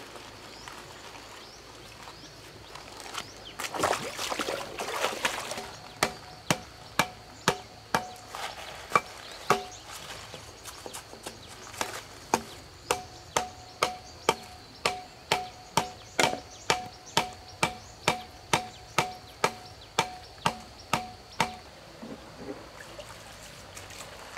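Repeated sharp striking blows, about two a second, in two runs with a pause of about two seconds between them; many blows carry a brief ringing note. A rustling, scraping noise comes a few seconds before the blows start.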